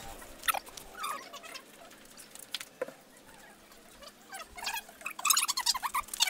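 A few sharp knocks in the first second, then a run of short, high chirping animal calls about four and a half to six seconds in.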